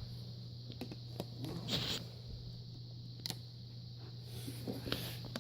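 Vacuum cleaner parts being handled: scattered light clicks and taps, with a short rustle about two seconds in, over a low steady hum.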